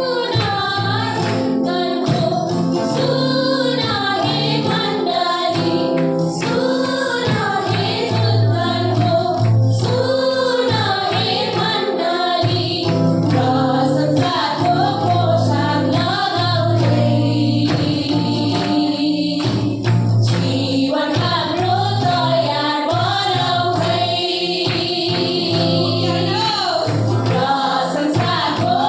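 A group of voices singing a Christian worship song over instrumental backing, with a steady percussive beat.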